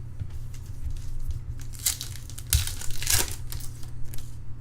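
Foil trading-card pack wrapper being torn open and crinkled, in a few short rustles, loudest around two to three seconds in, over a steady low hum.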